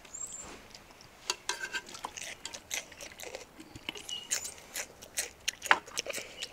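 A child biting and chewing a piece of raw green vegetable: irregular small crunches and mouth clicks, the sharpest near the end. A few clinks of metal tongs on an enamel bowl come near the start.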